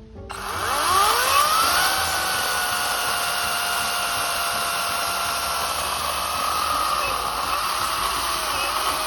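EGO cordless electric chainsaw, running on a 2.5 amp-hour battery, starting up with a whine that rises in pitch over about a second and a half and then runs at steady full speed, its pitch dipping briefly a few times near the end.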